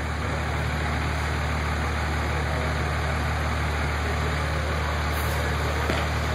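Dodge Ram pickup engine idling steadily with an even low hum.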